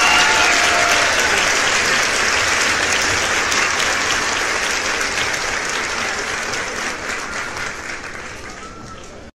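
A large crowd of football fans cheering and clapping, a dense wash of noise with a few shouted voices at the very start. It fades slowly and then cuts off abruptly near the end.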